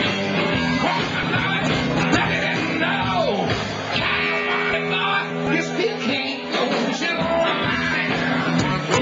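Live blues-rock band playing loud: electric guitar and drums, with a singer shouting into the microphone. A long downward slide in pitch about three seconds in.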